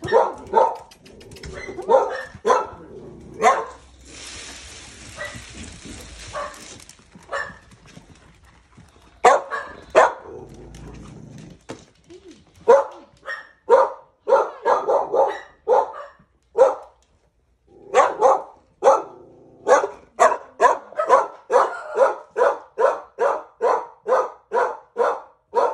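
Dogs barking over and over, in short bursts at first and then in a steady run of barks about three a second near the end. A hissing noise lasts about three seconds early on.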